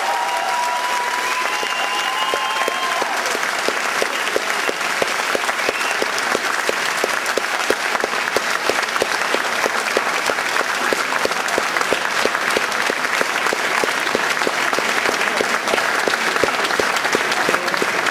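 Audience applauding a choir after its song. About four seconds in, the clapping settles into a steady rhythmic beat, the crowd clapping in unison.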